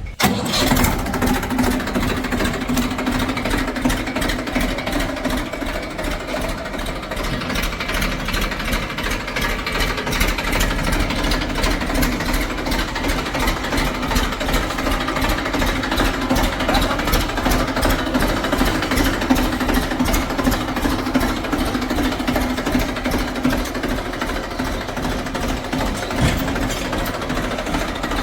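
Diesel engine running steadily, with a fast, even clatter over a constant hum.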